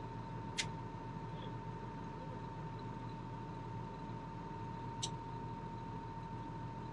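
Steady low drone of a truck engine running, with a constant thin tone above it and two short sharp clicks, one about half a second in and one about five seconds in.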